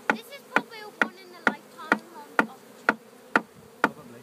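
Honeybee swarm buzzing as a steady hum, under a sharp, regular tick about twice a second.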